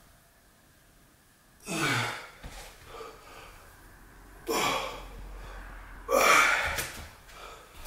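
A man breathing hard from exertion during a dumbbell workout: three loud, forceful gasping breaths, the first about two seconds in and the others roughly every two seconds after.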